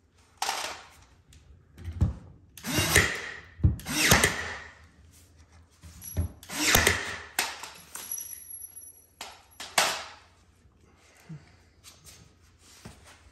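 Power drill running in about six short bursts of under a second each, typical of driving screws during cabinet assembly, with a few knocks in between.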